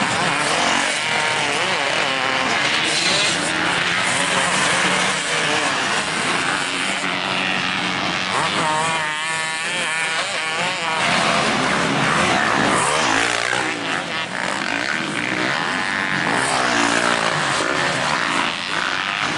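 Motocross bike engine running hard on the track, its pitch rising and falling as the throttle is opened and shut, over heavy wind rush.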